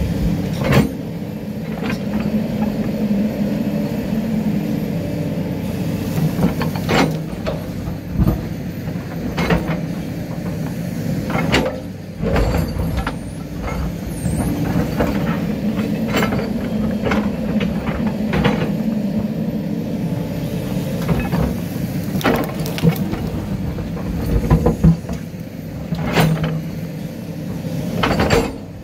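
Excavator's diesel engine working steadily under hydraulic load while the steel bucket digs into rocky soil, with irregular clanks and knocks of bucket on rock every second or few seconds.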